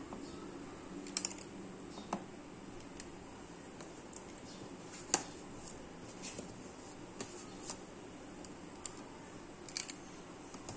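Quiet room with a few faint, irregular small clicks and taps of metal and glass, the sharpest about five seconds in. Near the start, a metal ice-cream scoop's squeeze-release lever clicks as it drops a scoop into a glass bowl.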